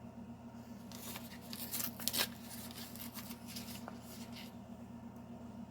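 Faint rustling and light clicks of small plastic toy figures and their packaging being handled, strongest in the first half and again briefly past the middle, over a low steady hum.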